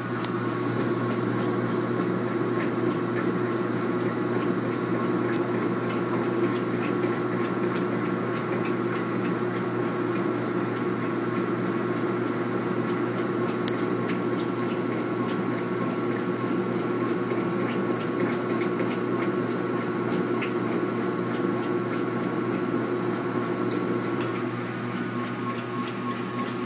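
Maytag LAT8714 top-load washing machine running in agitation: a steady motor and belt-drive hum with scattered faint ticks, carrying the distinct rattle the owner hears during agitation.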